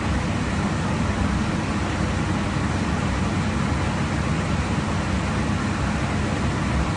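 Steady rushing noise inside an aircraft's flight deck at cruise altitude: airflow and cabin air noise with a low rumble, unchanging throughout.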